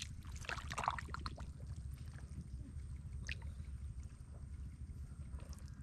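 Water sloshing and trickling, with a few short splashes in the first second and a half and another about three seconds in, over a steady low rumble.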